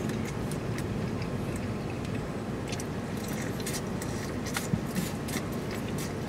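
Biting and chewing into corn on the cob: scattered small crisp clicks over a steady low hum inside a car's cabin.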